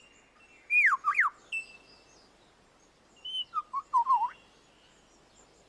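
Superb lyrebird singing: two bursts of clear whistled notes with rapid falling and rising sweeps, one about a second in and another about four seconds in.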